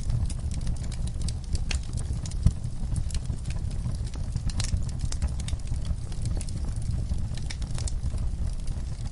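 Log fire burning, with a steady low rumble of flame and irregular crackles and pops from the burning wood, one louder pop about two and a half seconds in.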